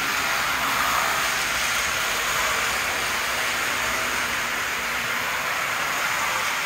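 Model trains running on sectional track laid on a wooden floor: a steady whirring rattle of the locomotive motors and the wheels on the rails.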